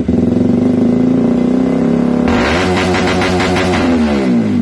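Motorcycle engine revving, held at a steady high pitch, turning rougher a little over two seconds in, then dropping in pitch near the end as the revs fall.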